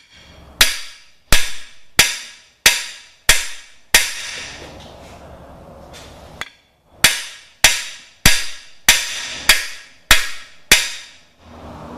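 Hammer blows on a cam bearing installation tool, driving a cam bearing into its bore in a 396 big-block Chevy engine block. A run of six sharp, ringing strikes comes about two-thirds of a second apart, then a pause, then seven more at the same pace.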